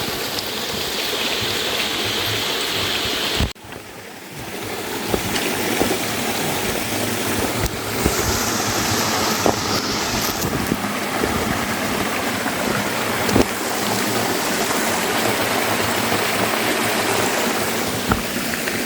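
Stream running steadily, with a sudden dip about three and a half seconds in before the sound builds back up.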